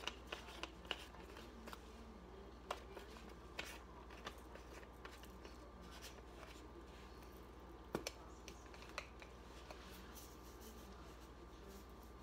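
Faint, scattered light clicks and taps of a plastic seasoning jar and a spoon being handled while seasoning is measured out, the sharpest tap about eight seconds in, over a low steady hum.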